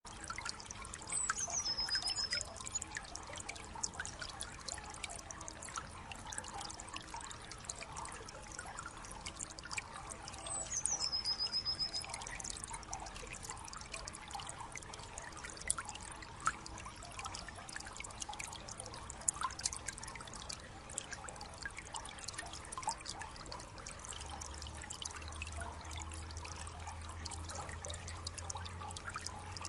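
Water trickling steadily, dotted with many small drips and splashes. A short high falling chirp sounds twice, about a second in and again about ten seconds in. A low hum joins near the end.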